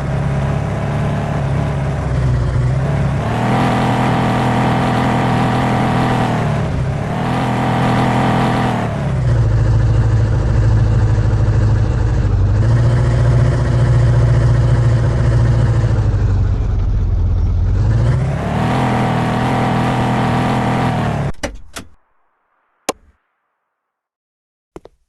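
Car engine running and revving, its pitch rising and falling several times. It cuts off abruptly about 21 seconds in, followed by a few sharp clicks.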